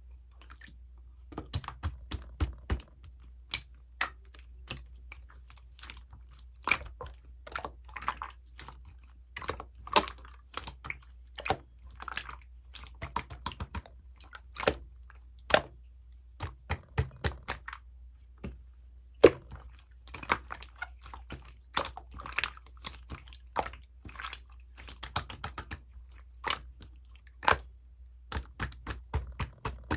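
Clear slime being squeezed and pressed by hand, making irregular sharp clicks and wet pops, several a second at times.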